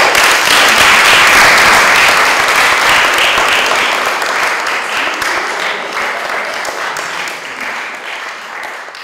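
Audience applauding, loud at first and slowly dying away.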